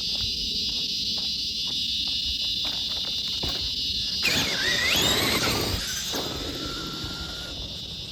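A steady high-pitched chorus of insects, with the Traxxas Summit RC truck's electric motor and drivetrain whining over it at midway, the pitch swinging up and down with the throttle.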